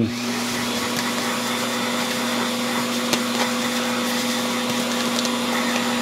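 Vacuum cleaner running steadily through its hose, the nozzle sucking dust and hair off a Roomba's bristle brush roll, with an even whooshing rush over a constant hum.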